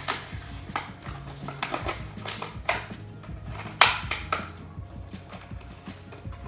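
Hot Wheels blister pack being handled and opened: a string of sharp plastic and cardboard clicks and crackles, the loudest just before four seconds in, over quiet background music.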